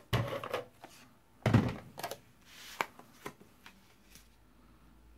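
Several sharp knocks and taps on a tabletop as a plastic adhesive tape gun is set down and card pieces are handled. The loudest knocks come at the very start and about one and a half seconds in, with lighter taps after, then it goes quiet.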